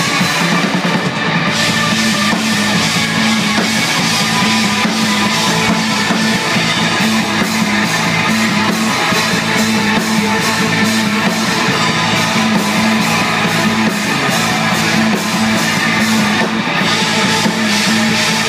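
Live rock band playing electric guitars, bass and drum kit in an instrumental passage with no vocals, loud and steady, the drums hitting in a regular beat.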